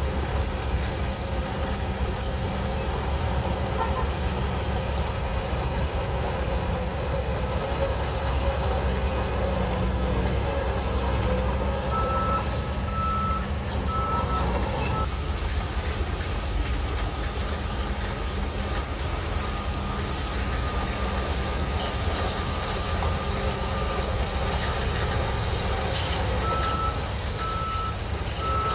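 Shantui DH17C3 Pro bulldozer's diesel engine running steadily while it works, with a reversing alarm sounding a short run of evenly spaced beeps about halfway through and again near the end as the dozer backs up.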